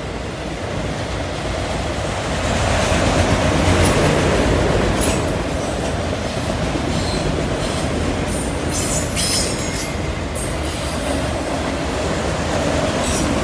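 Autorack freight cars rolling past on the rails: a steady rumble of wheels on track, broken by several brief high-pitched wheel squeals, the strongest about nine seconds in.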